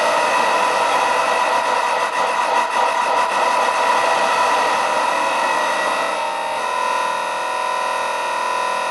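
Noisy electronic drone from a hand-wired, circuit-bent board patched with alligator-clip leads: a dense hiss with several steady tones on top, the loudest a tone near 1 kHz. About two-thirds through, the tones change to a new set as the clip leads are moved.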